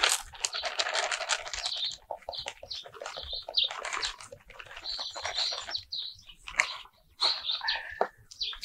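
Gritty bonsai potting medium pouring from a plastic bag into a tin pot, the bag crinkling as it is shaken, with a dense crackle of granules, briefly stopping about seven seconds in. Birds chirp at the same time.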